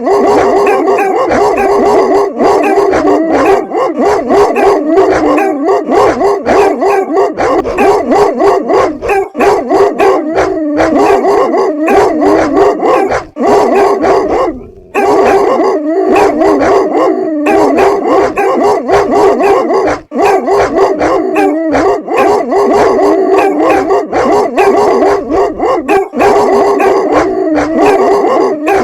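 Several dogs barking at once, their barks overlapping into a continuous din, with a brief break about fifteen seconds in.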